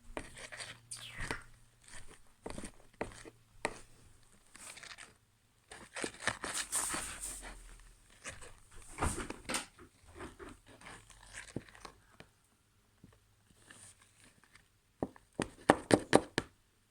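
Slime being kneaded and stretched by hand, giving irregular clicks, pops and crackles, with a denser crackly stretch in the middle and a run of sharp, loud pops near the end.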